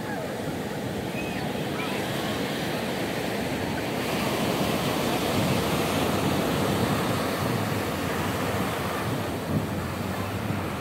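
Ocean surf breaking and washing up a sandy beach in a steady rush, swelling louder in the middle and easing toward the end.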